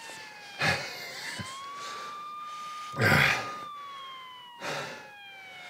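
Police siren wailing, its pitch holding, sliding slowly down and sweeping quickly back up about twice. Over it, a man coughs harshly three times, loudest about three seconds in.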